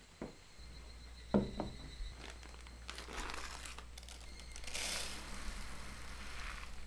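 Two short knocks near the start, the louder about a second and a half in. Then a bag of rice crinkles as it is handled, and rice grains pour with a hiss into a plastic colander bowl in the last couple of seconds.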